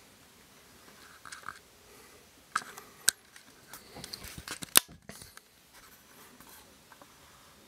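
Camera handling noise: a series of sharp clicks and knocks as the camera is moved, the loudest a little under five seconds in.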